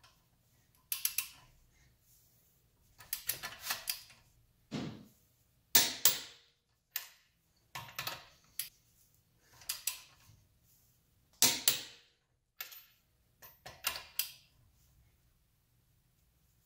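Tekton click-type torque wrench tightening wheel lug nuts, set to 129 foot-pounds: short runs of ratchet clicking, with the sharp click of the wrench breaking over at set torque. The loudest clicks come about six seconds in and again just before twelve seconds.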